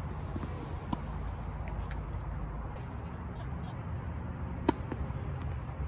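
Tennis racquet striking the ball on a serve, a sharp loud pop a little before the end, with a lighter knock of ball on racquet or court about a second in.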